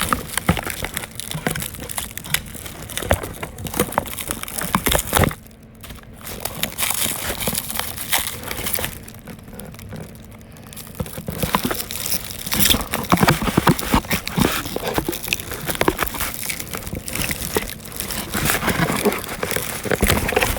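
Brake pad packaging being opened and handled: cardboard and plastic wrapping crinkling and rustling, with irregular sharp crackles and two brief quieter spells.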